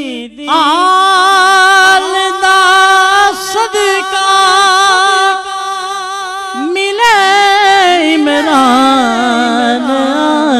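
A man's voice singing a Punjabi naat, holding one long note with vibrato from about half a second in. A little before seven seconds a new phrase starts and slides downward in pitch.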